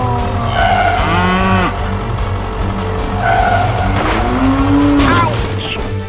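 Cow mooing: two long low calls, one about a second in and one that rises about four seconds in, over background music.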